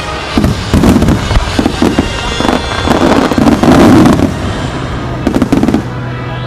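Starmine fireworks shells bursting in rapid, overlapping volleys, a dense run of sharp bangs that stops near the end.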